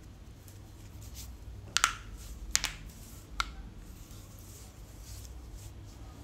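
Three sharp taps about a second apart, small hard objects knocking on a hard surface, over a low steady hum.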